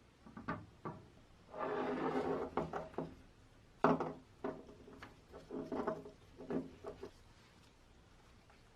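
Hard parts being handled on a workbench: scattered knocks and clicks, a short scraping rub about two seconds in, and a sharper knock about four seconds in.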